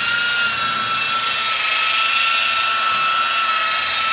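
DeWalt rotary buffer running steadily with a high, even motor whine as its wool pad is worked over compound on fiberglass gel coat.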